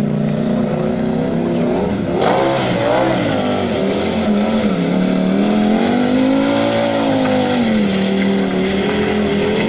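Sportbike engine revving hard during stunt riding, its pitch sweeping up and down in long waves as the throttle is worked through wheelies and rear-wheel circles.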